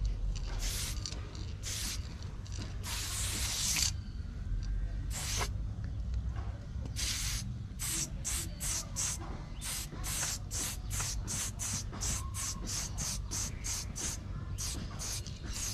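Hand trigger spray bottle squirting water-thinned paint in short hisses: a few separate squirts, one longer spray about three seconds in, then a quick run of about two to three squirts a second from about seven seconds on. A steady low rumble sits underneath.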